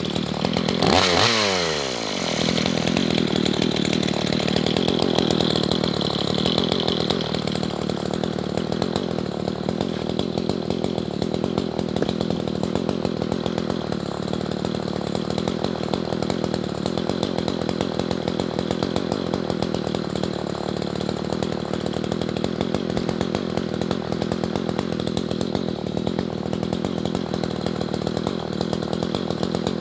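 Gasoline chainsaw running: it revs briefly about a second in, falls back with a dropping pitch, then runs on steadily at a lower speed.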